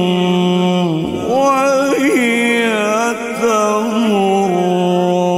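A man reciting the Qur'an in melodic tajweed style, holding long, ornamented vowels that turn up and down in pitch through drawn-out melismatic phrases, with a short break about a second in.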